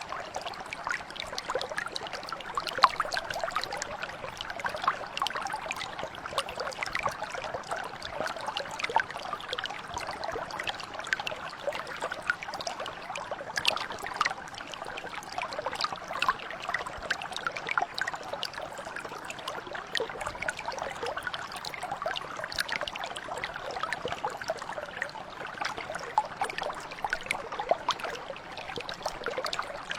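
Water of a small stream or mountain brook flowing and trickling steadily, with many small irregular splashes and bubbles.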